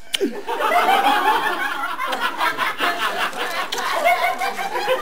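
Several people laughing and chuckling at once.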